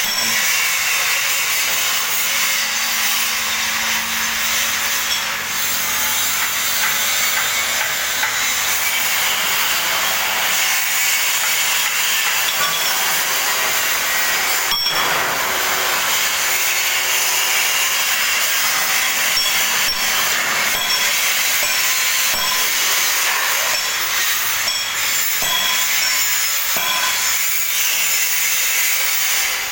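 A power cutting tool running steadily in a workshop, a loud continuous rasping hiss. A low motor hum sits under it for the first several seconds, and there is a single sharp knock about halfway through.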